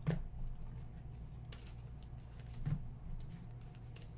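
Faint handling of trading cards: a few soft ticks and brief rustles, near the start, about a second and a half in and near the middle, over a steady low hum.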